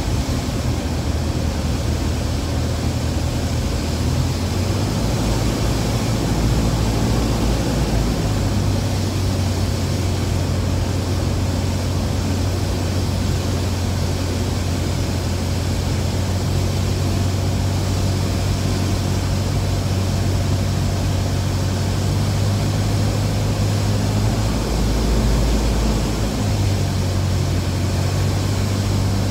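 Light aircraft's engine and propeller drone heard from inside the cabin, with airflow noise, as the plane descends on approach to land. The drone is steady, its low tone shifting slightly a few times.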